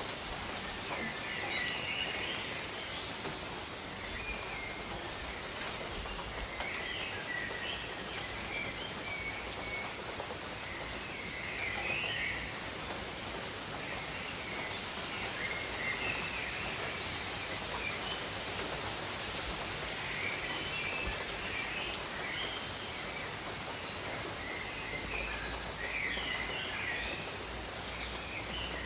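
Steady gentle rain falling on leaves, with birds chirping in short bursts throughout.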